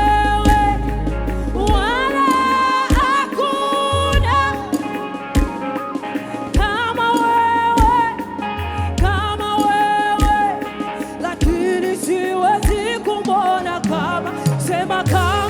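Live gospel praise and worship music: singers holding and bending notes with vibrato over bass and regular drum hits.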